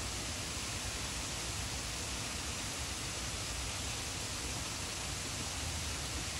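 A steady, even hiss that does not change, with no chewing or other distinct sounds standing out.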